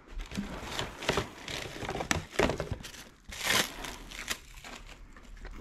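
Clear plastic packing bag crinkling and rustling as black plastic motorcycle body panels are pulled out of it. It comes in irregular bursts and is loudest about two and three and a half seconds in.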